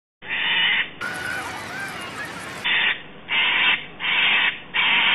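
Crow cawing sound effect: five harsh caws, one just after the start and four in a steady run from about two and a half seconds in, voicing the clay crow.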